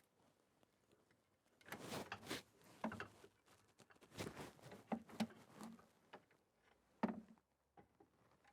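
Light knocks, clicks and rustles of hands handling tools or parts, scattered irregularly over several seconds, with a sharper knock about seven seconds in.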